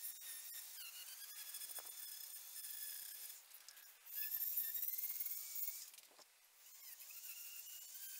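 High-speed rotary tool with a small cutting burr grinding a slot in a mild steel dagger guard to inset the ricasso. It gives a high-pitched whine whose pitch dips and recovers as the burr bites. The whine swells about four seconds in, then fades for a moment before picking back up.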